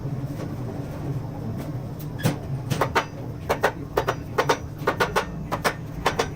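Short, sharp metallic clicks in small clusters of two or three, about every half second, starting about two seconds in over a low steady hum: hand tools or engine parts being worked during engine assembly.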